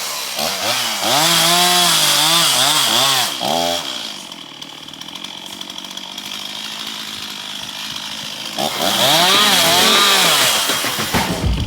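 Chainsaw cutting into a tree, its engine pitch surging up and down over and over as the throttle is worked. It drops to a quieter, steadier run for a few seconds in the middle, then surges again.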